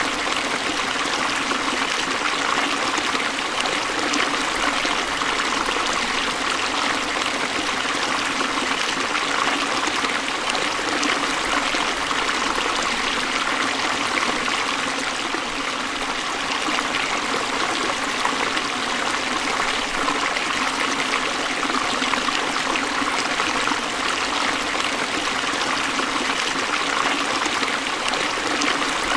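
Forest stream running over rocks: a steady, even rush of flowing water.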